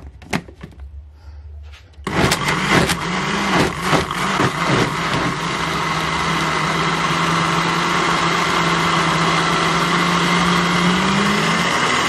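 Countertop electric blender switched on about two seconds in, after a few light knocks, and running at speed on a banana, avocado and spinach smoothie. It is uneven at first while the chunks are being broken up, then settles into a steady whir.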